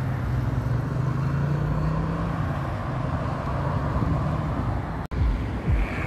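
Steady road traffic noise, with a vehicle engine's low drone over it for the first couple of seconds before it fades. About five seconds in the sound cuts out for a moment, and music with a regular bass beat begins.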